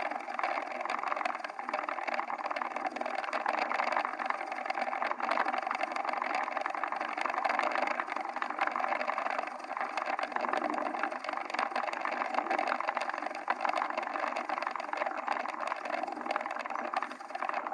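Pulleys of a home-built camera tram rolling along their line, a steady mechanical whir with a fine rattle; the uploader calls the pulleys a bit clunky.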